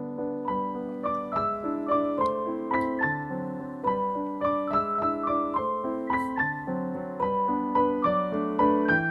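Background piano music: a melody of struck notes, a few a second, over lower chords.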